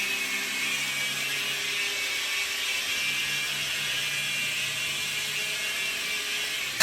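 Toy radio-control helicopter's small electric motors and rotor blades whirring steadily in flight, a high-pitched whine over a low hum.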